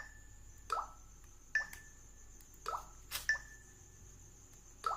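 Redmi Note 5 Pro's screen lock and unlock sounds, repeated as the phone is locked and unlocked again and again: short falling, drip-like blips alternating with sharp clicks that each have a brief high tone, three of each. The phone is being tried with face unlock, which struggles because of the light falling on the face.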